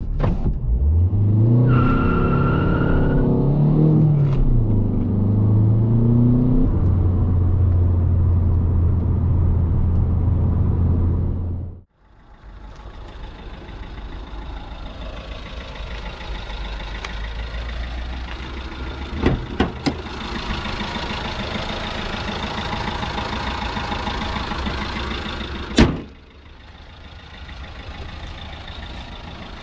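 Alfa Romeo MiTo 1.3 JTDm four-cylinder turbodiesel started up: its revs rise and flare, then fall back to a steady low idle. After a sudden cut about 12 s in comes a much quieter, steady outdoor rumble, with a few sharp clicks.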